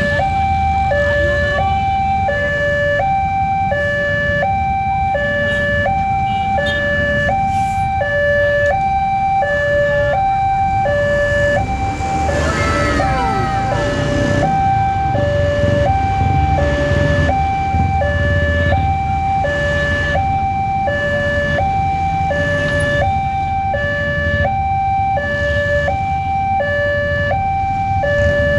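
Railway level-crossing warning alarm: an electronic two-tone signal stepping between a low and a high tone about once a second, the sign of an approaching train with the crossing closing. Traffic engines rumble underneath, and about halfway through a brief sliding, warbling tone rises over it.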